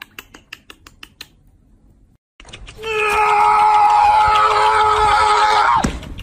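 Light clicks, a small puppy's claws ticking on a wooden floor. Then, after a short gap, a long loud wail held at one steady pitch for about three seconds, which drops away at the end.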